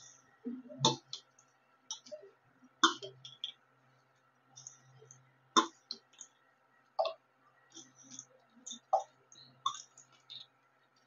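Metal spoon clinking and scraping against a stainless-steel bowl as rice is stirred and mixed, in irregular clicks and taps.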